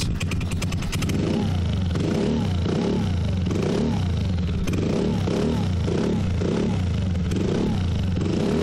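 A Kymco Agility 50 scooter's single-cylinder four-stroke GY6 engine, on Ecotrons electronic fuel injection, is revved in quick repeated throttle blips. Each time the revs rise briefly, then fall back toward idle.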